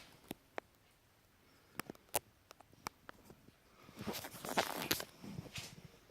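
Footsteps and shuffling through the flooded house: a few scattered clicks and knocks, then a cluster of scuffing and scraping from about four to five and a half seconds in.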